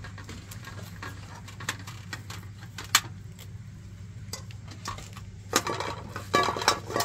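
A kitchen knife clicking and clinking against a metal tray and aluminium bowl as a raw chicken is cut up. The metal clinks are scattered, with a sharp one about three seconds in and a quicker run of ringing clinks near the end, over a steady low hum.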